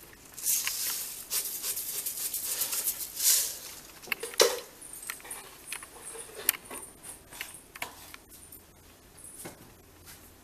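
A metal spoon stirring and scraping around a steel kadhai of salted, sweetened water, with a rush of scraping in the first few seconds, a sharp clink about four seconds in, then lighter scattered clicks.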